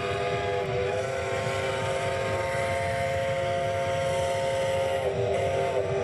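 Several locomotive horns and whistles sounding together in one long held chord. Some of the pitches shift about a second in and again near the end.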